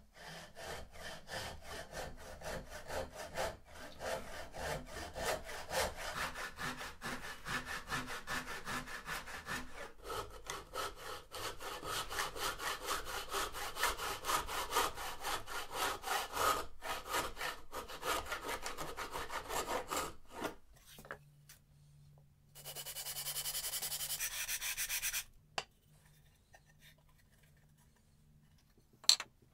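Brass-backed dovetail saw cutting wood by hand in quick, even strokes for about twenty seconds. Later comes a separate steady hiss of about three seconds, and a sharp click near the end.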